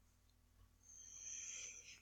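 Near silence, with a faint, short, high hiss about a second in, like a breath drawn through the nose.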